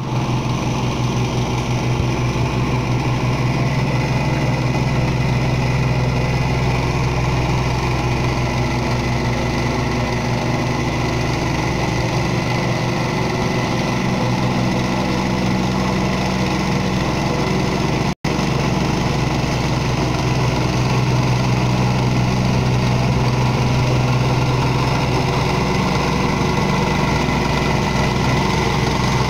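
Vibratory plate compactor's small engine running steadily as the plate is walked over freshly laid concrete paving tiles, shaking them down into their bed. The even engine note breaks off for a split second once, partway through.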